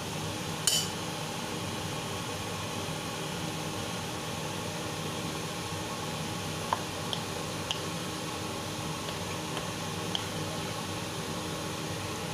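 A wooden spatula stirring and turning greens and pork in a nonstick frying pan over a steady sizzle. There is one sharp clack less than a second in and a few light clicks of the spatula against the pan later on.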